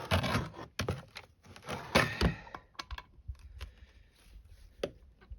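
Clicks and knocks of hands handling a chainsaw and tools, busy for the first two seconds and then a few scattered ticks.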